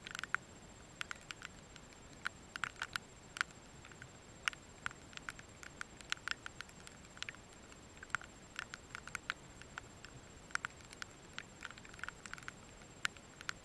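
Short, sharp chips and clicks from rainbow lorikeets chattering softly, coming irregularly in quick clusters of several at a time.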